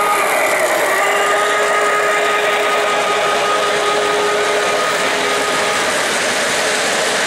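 O-gauge model trains running on three-rail track: a steady whirring of motors and wheels rolling on the rails, with a steady high-pitched whine through most of it that drops out near the end.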